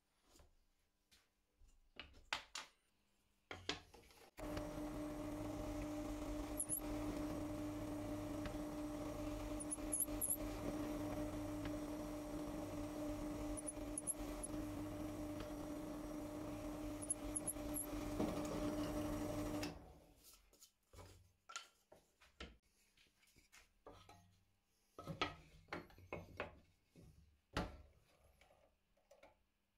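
Benchtop drill press motor starting about four seconds in and running with a steady hum for about fifteen seconds while a twist bit drills into a wooden board, then cutting off. Scattered light knocks before it starts and after it stops.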